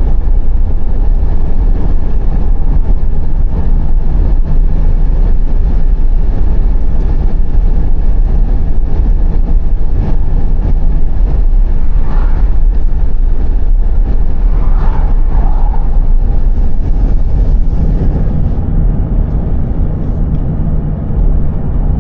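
Car driving along a road: a steady, loud low rumble of tyres, engine and wind. It eases and grows quieter over the last few seconds.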